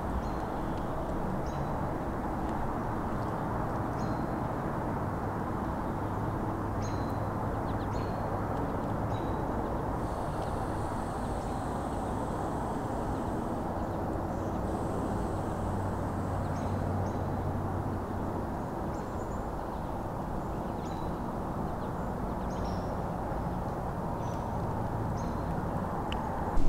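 Outdoor woodland ambience: a steady low rumble with short, scattered high bird chirps.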